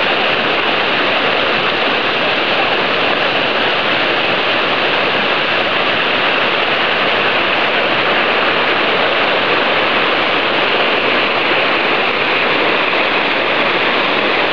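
River water rushing over a shallow, rocky rapid: a loud, steady wash of white water.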